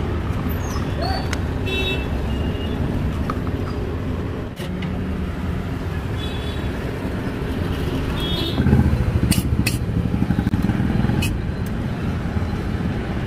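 Steady roadside traffic noise, with a vehicle passing louder a little past the middle. A few sharp clinks stand out near then.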